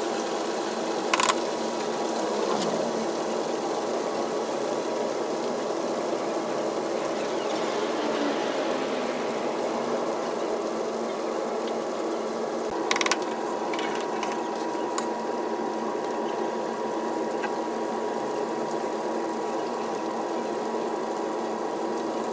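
Batter-coated chicken deep-frying in a vat of hot oil: a steady sizzle, broken twice by a sharp metal clank, about a second in and again near the middle.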